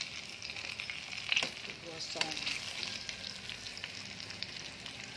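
Battered banana fritters deep-frying in hot oil: a steady sizzle full of small crackling pops, with a sharp click about one and a half seconds in.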